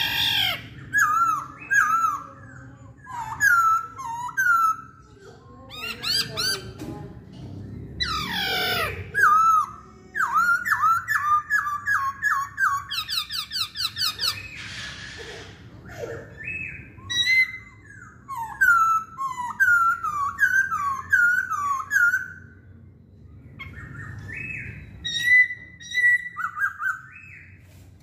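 Black-throated laughingthrush (Hong Kong poksay) singing: phrases of quick, repeated, down-curving whistled notes, broken by a few loud sweeping calls and short pauses.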